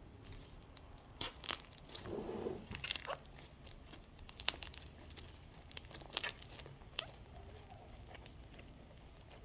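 Elmer's glue slime being squeezed and stretched by hand, giving irregular sticky clicks, pops and crackles, most of them between about one and seven seconds in.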